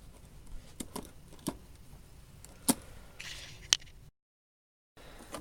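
Small measuring tools being handled: a few separate light clicks and taps of metal pieces set down or picked up, with a brief scrape. Near the end the sound drops out to dead silence for about a second.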